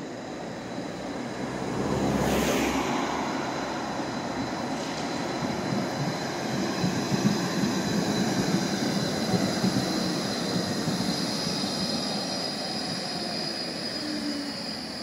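Tram running close by on street rails, a steady rumble of wheels and motors with a thin high whine that grows stronger near the end. A brief loud rush passes about two seconds in.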